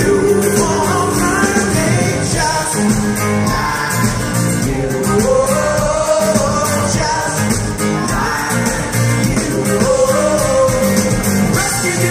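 Live pop-rock band playing loudly through a concert PA, with a vocal line over guitar, bass and drums.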